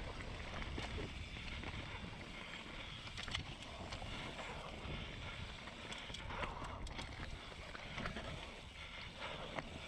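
Mountain bike riding fast down a dirt forest trail: a steady rumble of tyres and wind on the microphone, with scattered clicks and rattles as the bike runs over stones and roots.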